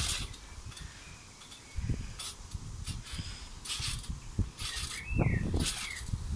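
Garden trampoline's coil springs creaking and the mat swishing in a rhythm of about one bounce every three-quarters of a second, starting about two seconds in, with short squeaks from the springs over a low rumble.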